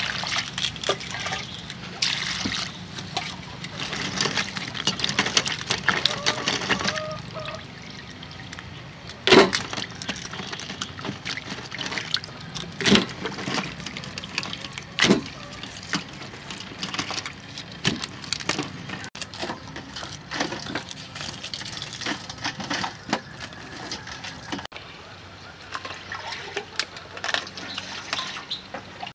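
Water splashing and trickling while food is handled, with scattered sharp knocks and clicks throughout, the loudest about nine, thirteen and fifteen seconds in.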